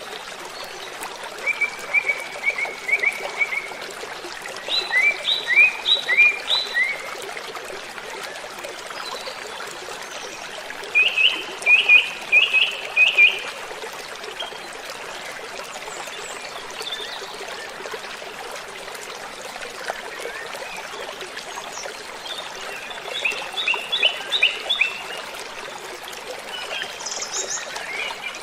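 Steady rush of a waterfall, with a bird singing short phrases of quick repeated chirps, four or five phrases about two seconds long each, a few seconds apart.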